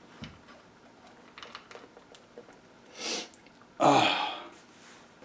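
Faint small clicks from hands working the spring-driven recorder's mechanism. About three seconds in there is a quick breath in, then about a second later a sudden loud burst of breath from a person that fades over half a second.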